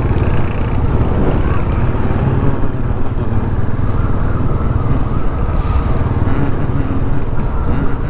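Motorcycle engine running steadily while being ridden, with a heavy low rumble.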